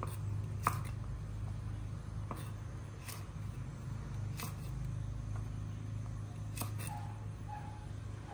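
Kitchen knife chopping green beans on a wooden cutting board: about seven sharp, separate knocks at irregular spacing, over a steady low hum.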